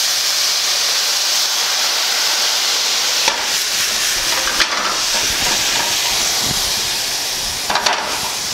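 Brandy hitting a hot stainless sauté pan of shrimp: a sudden loud sizzling hiss that starts as it is poured in and keeps going as the liquid boils off, easing slightly near the end. A few light clicks sound over it.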